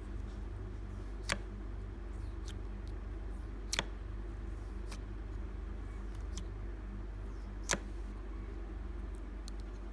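Clear glitter slime being handled, giving short sharp clicks and pops every second or so, the loudest three about one, four and eight seconds in, over a steady low hum.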